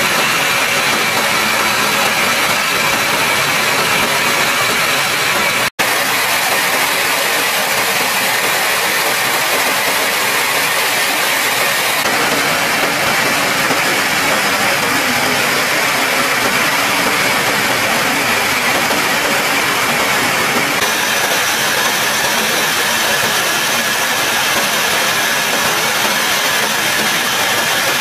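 Steady noise of jet engines and rushing air heard aboard an aircraft in flight, with a faint high whine. It breaks off for an instant about six seconds in and changes slightly in tone twice after that.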